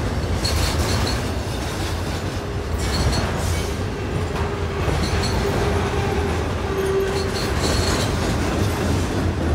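Double-stack intermodal freight train's well cars rolling past close by: a steady low rumble of wheels on rail, with short clusters of high-pitched wheel squeaks every two seconds or so.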